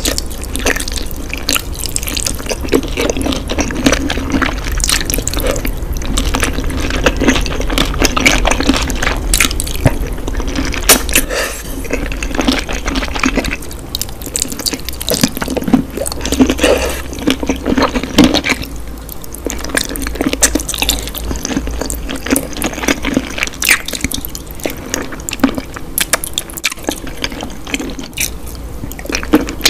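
Close-miked eating of sauce-coated spicy chicken feet: wet, sticky biting, chewing and sucking with many small wet clicks, over a steady low hum.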